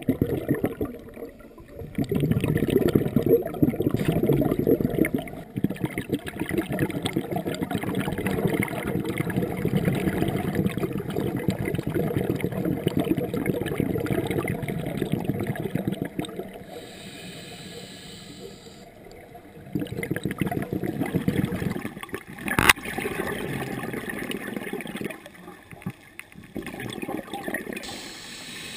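Underwater camera audio of scuba divers' exhaled regulator bubbles gurgling and crackling in long stretches, with quieter gaps between. A single sharp click comes about two-thirds of the way through.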